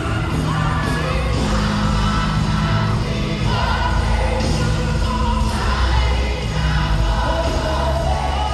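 Live gospel worship song: a band with a heavy bass line under group singing. The bass comes in right at the start.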